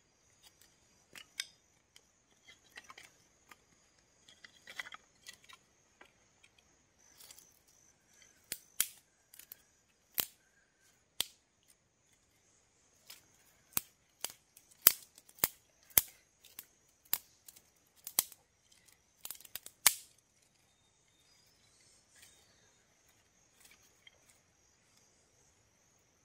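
Dry sticks and split bamboo kindling being snapped and split by hand and with a small knife: a series of sharp cracks, sparse at first and loudest and most frequent in the middle stretch, then tapering to light rustling. A steady high insect drone runs underneath.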